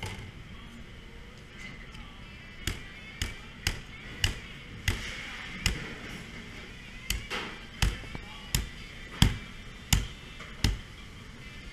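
Heavy meat cleaver chopping through the ribs of a whole pig carcass, a run of about a dozen sharp whacks roughly one to two a second, starting a few seconds in.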